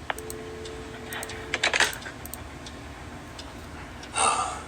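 Telephone handset clicking, with a steady two-note dial tone for about a second and a half that cuts off among a few clicks as the receiver goes back on its cradle. A short rush of noise follows near the end.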